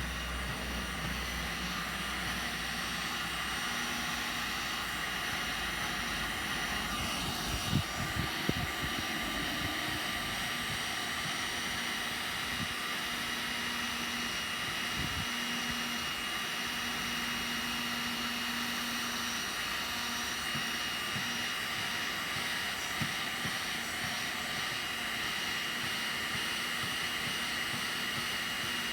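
Heat gun running steadily, its fan blowing with a thin high whine. A few light knocks about eight seconds in.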